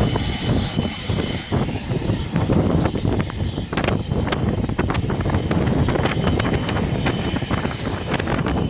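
Aircraft engine running, a steady high whine over a dense rumbling, crackling noise.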